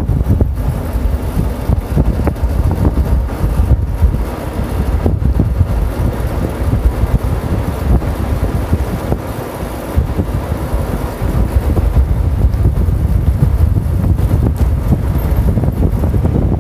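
A golf cart riding along, its rumble mixed with wind buffeting the microphone.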